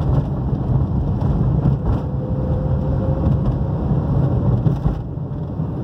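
Steady low rumble of a car's tyres and engine while driving over rough, pothole-patched asphalt, heard inside the cabin.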